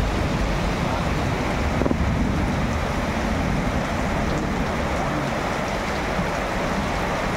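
Heavy rain pouring down in a steady, unbroken rush, with a deep rumble underneath.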